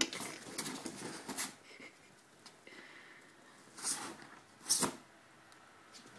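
Doberman sniffing and snorting with short breathy bursts: a quick run in the first second and a half, then two louder snorts about four and five seconds in.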